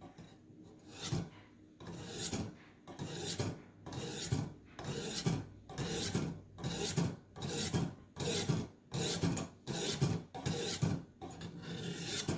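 Ka-Bar knife's steel blade drawn again and again through the hones of a Warthog knife sharpener while sharpening the edge: rasping strokes about twice a second, starting about a second in.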